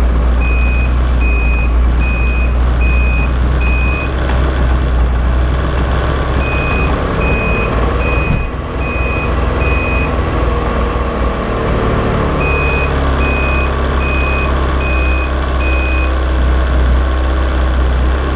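Ski-Doo 800 E-TEC two-stroke snowmobile engine running steadily at about 2000 RPM in its automatic fogging mode, which sends injection oil through the engine to winterize it. Sets of five short high beeps sound about every six seconds over the engine.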